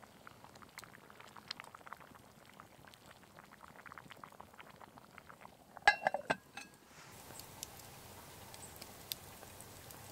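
Faint bubbling and popping of a lamb stew simmering in a cast iron Dutch oven over a wood fire. About six seconds in come a few sharp metallic clanks with a brief ring as the cast iron lid and pot are handled.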